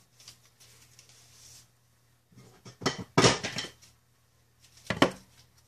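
A few short clatters and knocks of hard objects being handled on a workbench, a cluster about three seconds in and another near the end, over a faint steady hum.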